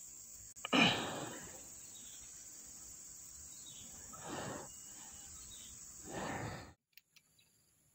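Steady high-pitched drone of insects in the trees, with a sudden loud burst about a second in and two softer swells later. The sound cuts off abruptly near the end.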